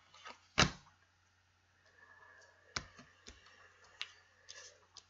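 Tarot cards handled and laid on a tabletop: a sharp tap about half a second in, then a few lighter taps and faint rustles of cards.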